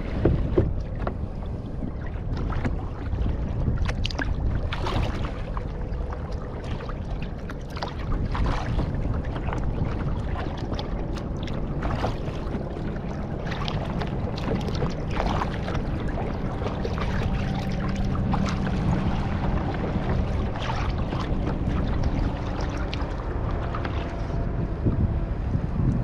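Double-bladed kayak paddle dipping into the water in repeated strokes, with splashes and drips, over a steady rumble of wind on the microphone.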